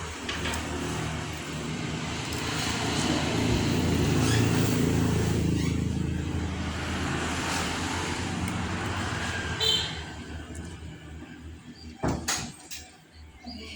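A motor vehicle passing, its low rumble swelling and then fading away over about ten seconds, followed by two sharp clicks.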